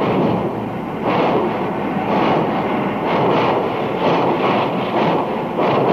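Two steam locomotives doubleheading as they pull away, their stack exhausts chuffing out of beat with each other in an uneven run of loud blasts.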